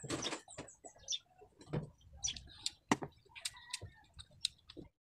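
A person drinking water from a glass: swallowing gulps near the start, then scattered small wet mouth clicks and lip smacks.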